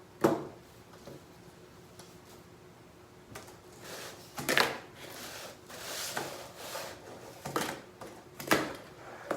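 A wooden fingerboard being ridden for tricks: several light clacks as its deck and wheels hit a tabletop and grind rail, spread unevenly, with short stretches of rolling noise between them.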